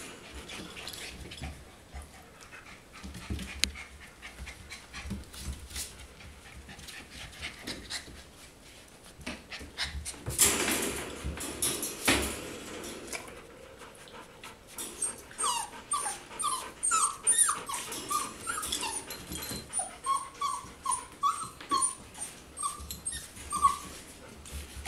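Four-week-old golden retriever puppies whimpering: a run of short, high whines, about two a second, beginning a little past the middle. Before them, scuffling and a loud rustle of bedding.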